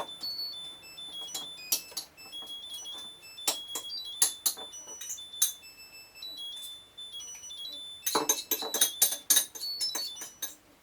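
A string of short, high-pitched electronic tones stepping up and down in pitch like a simple melody, mixed with sharp clicks that crowd together about eight seconds in.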